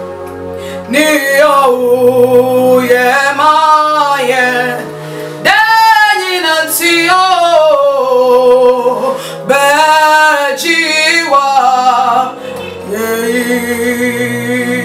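A woman singing a worship song in long, sliding, ornamented phrases over a steady instrumental backing of held low notes.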